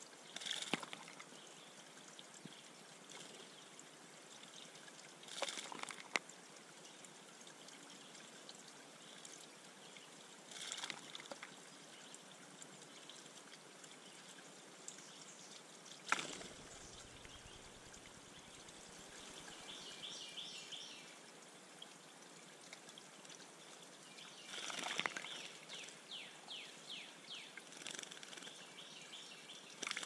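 Faint steady trickle of water in a shallow backyard bird pond, broken by several short bursts of splashing as a male scarlet tanager bathes, the longest near the end.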